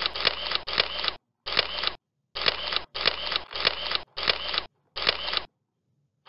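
Camera-shutter sound effect from slide animations, played about nine times in quick, uneven succession, each one about half a second long and starting with a sharp click. It stops about a second before the end. Each shutter sound marks another arrow or ship symbol popping onto the slide.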